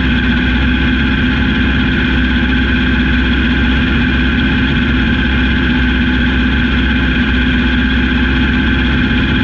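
A 750cc racing car's engine idling steadily, heard from inside the caged cockpit, with no revving.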